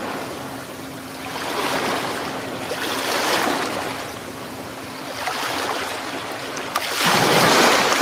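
Recording of ocean waves washing ashore, a rushing that swells and ebbs about every two seconds, with a faint steady hum underneath that stops about seven seconds in.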